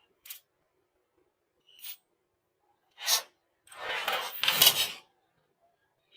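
Short scraping and rubbing sounds, three brief strokes followed by a longer, louder scrape near the middle.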